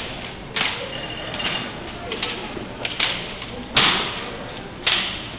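Drill rifles being slapped and handled in a rifle drill routine: several sharp cracks at uneven intervals, the loudest about four seconds in, each echoing in a large hall.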